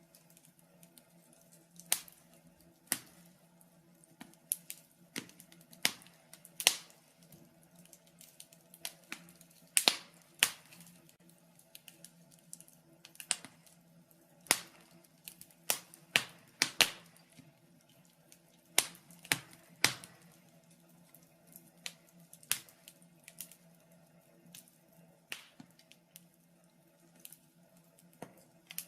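Wood fire crackling in a fireplace: irregular sharp pops and snaps, about one or two a second and varying in loudness, over a faint low hum.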